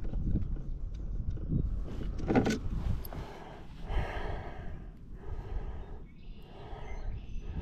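A person breathing hard, with a run of breaths about a second apart over a low rumble that fades after the first few seconds.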